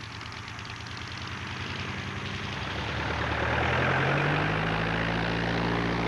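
Piston engine of a propeller aircraft growing steadily louder as it approaches. Its pitch rises about three to four seconds in, then holds steady.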